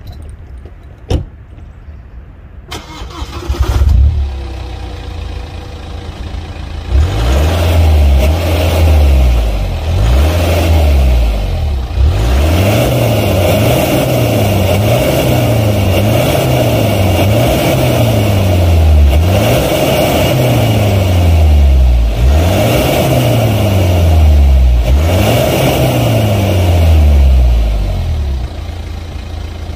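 BMW 320d E90's 2.0-litre turbodiesel heard at the exhaust tailpipes: the engine comes to life about three to four seconds in. From about seven seconds it is revved again and again, the pitch rising and falling roughly every one and a half seconds, then it settles back to idle near the end.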